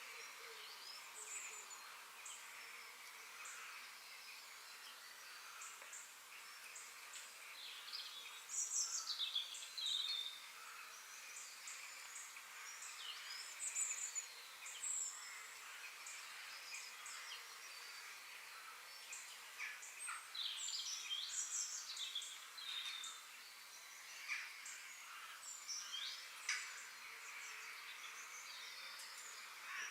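Forest ambience: many birds chirping and calling in short, high notes over a steady background hiss. The calls come in louder clusters about eight to ten seconds in, and again around fourteen and twenty seconds in.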